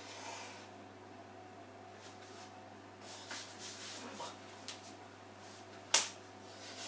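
Soft rustles of clothing and hands from a person signing, then one sharp hand clap or slap, hands striking together, about six seconds in. A faint steady low hum runs underneath.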